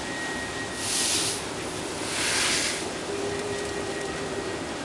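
Green coffee beans pouring from a burlap sack into a metal bin: a rushing hiss that comes in two surges, about a second in and again around two seconds, over a steady background hum.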